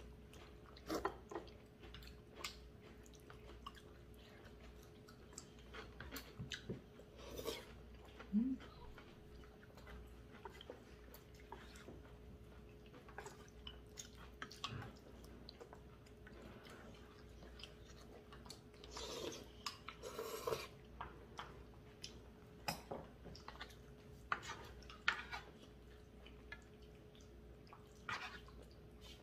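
People eating spicy braised chicken with glass noodles: quiet chewing with scattered clinks and scrapes of spoons, chopsticks and a ladle against bowls and a metal pan. A faint steady hum sits underneath.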